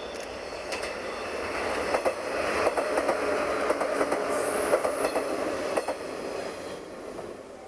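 A JR West 115-series electric train passing at speed, its wheels clattering over rail joints with a thin high squeal. The sound swells to a peak midway and fades as the train pulls away.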